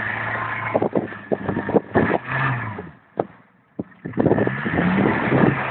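A 4x4's engine revving hard in bursts while the vehicle wallows in deep mud and water, with irregular knocks and splashing mixed in. About three seconds in it falls nearly quiet, then revs up again.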